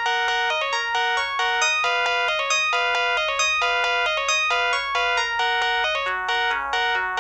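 Built-in ringtone of a Samsung SPH-N195 mobile phone playing: a quick, bright synthesized melody over chords, about four short notes a second.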